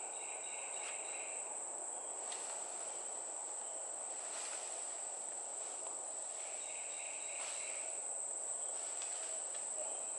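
Insects droning steadily at a high pitch, with a second, lower buzzing call coming in twice for about a second each.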